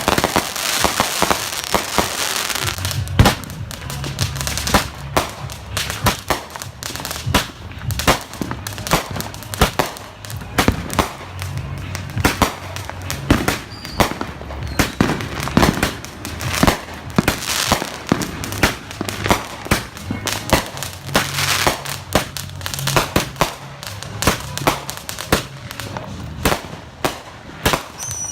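Consumer fireworks and firecrackers going off in a dense, irregular run of sharp bangs and crackles, with a music bass line thumping underneath at times.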